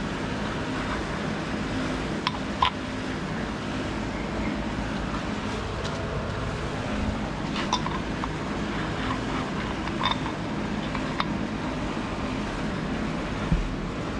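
Scattered sharp clicks and taps of metal pulley parts being handled and test-fitted on an engine, over a steady background hum.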